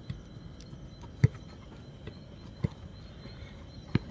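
A football being kicked: three dull thuds at uneven intervals, the loudest about a second in.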